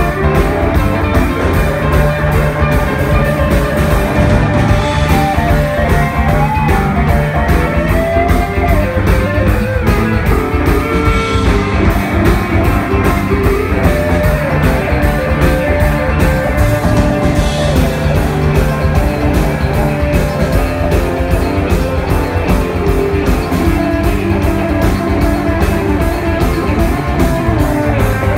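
Live rock band playing an instrumental passage: electric guitar lines over a steady drum beat, without vocals.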